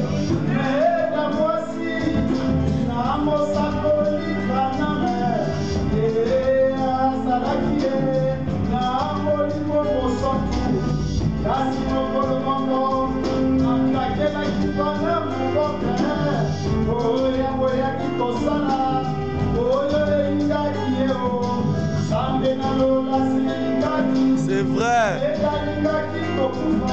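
A man singing a gospel song into a microphone, amplified through a PA loudspeaker, with electronic keyboard and hand drum accompaniment.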